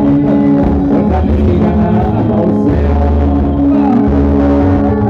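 Live band playing loudly: electric guitars and a drum kit over a steady bass line, with singing.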